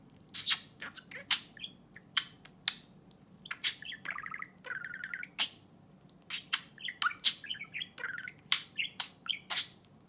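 Pet budgerigar chattering: a stream of short, sharp chirps and clicks, broken twice by longer warbling runs.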